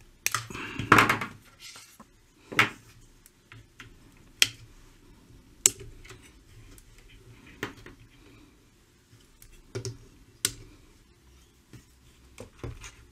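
Side cutters snipping the wires off an old can electrolytic capacitor on a valve radio's steel chassis, with metal clicks and knocks as it is worked loose: sharp snips and clicks every second or two, and a longer, louder handling noise about a second in.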